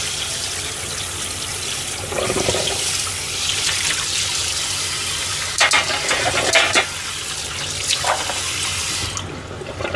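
Kitchen tap running steadily onto metal trays being rinsed in a stainless steel sink, with a few clatters of the trays against the sink about six to eight seconds in. The water is shut off about nine seconds in.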